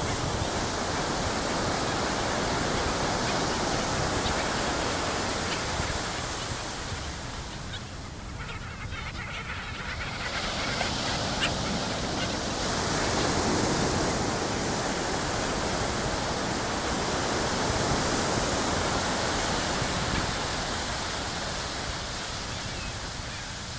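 Gentle surf washing onto a flat sandy beach: a steady rushing that eases about a third of the way in and swells again about halfway through and later on.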